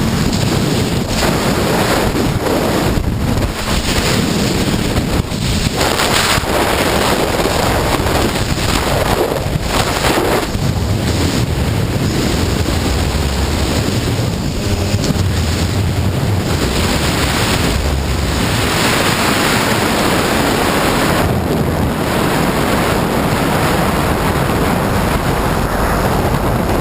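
Heavy wind noise buffeting the microphone on a moving Honda CBR954RR sport bike, with the motorcycle's inline-four engine running steadily underneath.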